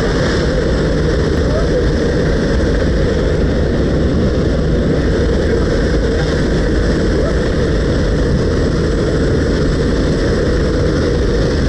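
Jump plane in flight with its side door open: steady drone of the aircraft's propeller engine mixed with the rush of air past the open door, loud and unchanging.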